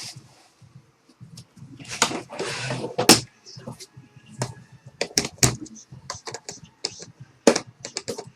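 Trading cards and their packaging being handled on a table: a rustle of plastic or wrapper about two seconds in, then a string of sharp clicks and taps as cards, sleeves and cases are moved.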